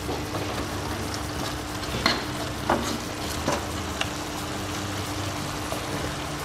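Chicken teriyaki with onion and bell peppers sizzling in its sauce in a non-stick wok, stirred with a metal spatula. The spatula clicks and scrapes against the pan several times between about two and four seconds in.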